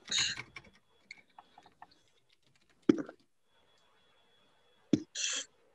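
Sparse computer keyboard keystrokes: a few faint taps, then two sharper clicks about two seconds apart, and a short hiss near the end.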